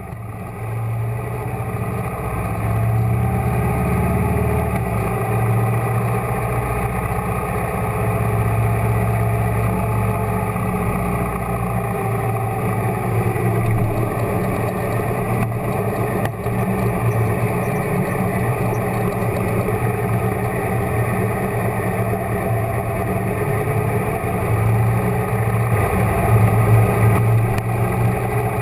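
Motorcycle engine running at a steady, moderate pace while riding down a town street, slightly louder near the end.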